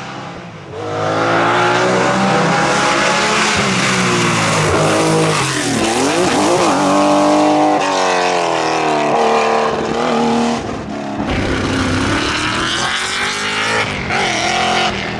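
Classic rally car engine at high revs. It comes in loud about a second in, and its pitch rises and falls repeatedly through gear changes, over a hiss of tyre noise.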